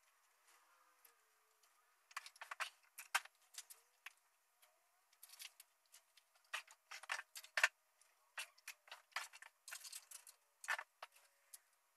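Irregular, scattered clicks, taps and rustles of small objects being handled and moved about at a desk, in clusters from about two seconds in until near the end.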